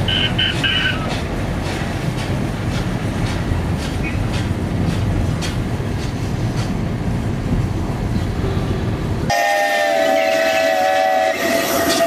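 Steam tram running on rails: a steady low rumble with regular clicks of the wheels over rail joints. Near the end its steam whistle sounds a chord of several notes for about two seconds, then a single lower whistle note.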